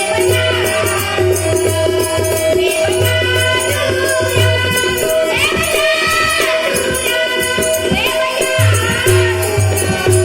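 Devotional bhajan music: a harmonium sustains held notes while jingling hand percussion keeps a fast, even beat, and a child's voice sings a gliding phrase around the middle and again near the end.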